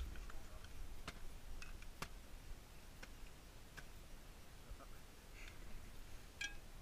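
Ice axe picks and crampon front points striking hard glacier ice: sharp, faint clicks at irregular intervals of about a second, as the tools are swung and kicked in.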